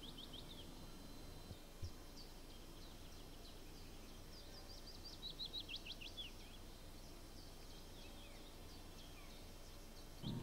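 Faint songbird song: short runs of quick, falling notes just after the start and again about five seconds in, over a low steady background rumble. A soft thump comes near two seconds in.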